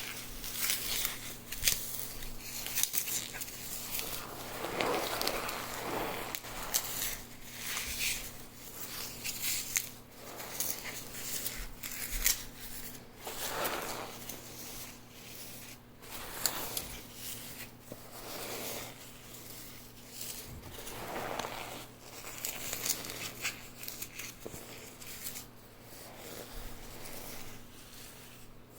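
Dry green floral foam block topped with cornstarch being crushed by hand: irregular crunching and crackling, with squeaky swells from the cornstarch now and then.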